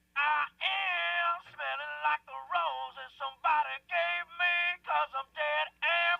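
Music: a processed, thin-sounding sung vocal in short phrases, with no beat under it.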